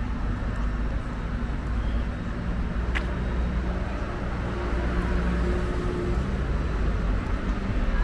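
Street traffic on a city boulevard: a steady rumble of engines and tyres from passing cars. A single sharp click comes about three seconds in, and one vehicle's engine note stands out briefly about five seconds in.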